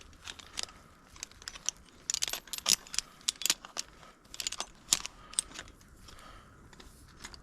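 Tree-climbing gear clinking and rattling: an irregular string of sharp metallic clicks and jingles, busiest in the middle.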